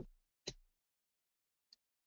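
Near silence: a pause in a man's lecture, with one short faint sound about half a second in.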